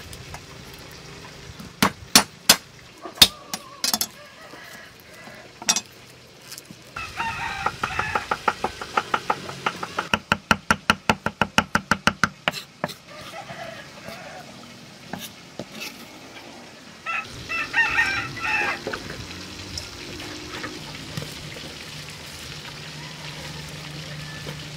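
Cleaver chopping on a wooden chopping block: a few heavy separate strikes, then a fast, even run of about five chops a second while mincing. Chickens cluck about two-thirds of the way in.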